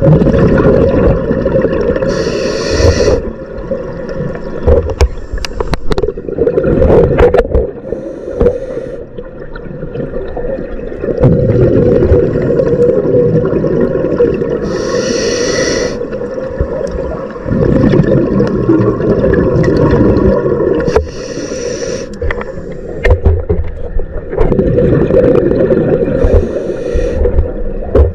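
A scuba diver's regulator breathing underwater: short hissing inhalations every several seconds, each followed by a long burbling rush of exhaled bubbles.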